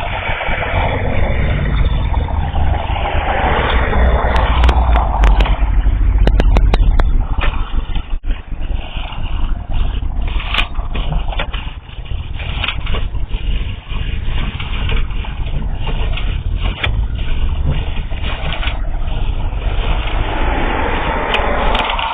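Steady low engine-like rumble with scraping and a run of sharp clicks about four to seven seconds in, as a sewer camera's push cable is fed into the drain line.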